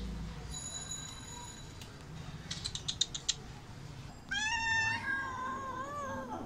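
Domestic cat giving one long, wavering meow that starts about four seconds in.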